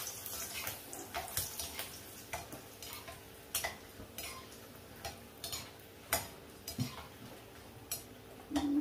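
Sun-dried buttermilk chillies (ooru mirapakayalu) frying in hot oil, a faint sizzle under irregular light clinks and scrapes of a metal spoon stirring them in the pan.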